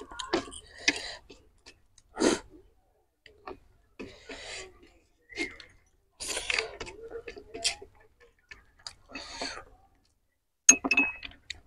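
Close-up eating sounds: chewing and smacking mouthfuls of chicken and rice in irregular bursts with small wet clicks, and a metal spoon clinking on the plate near the end.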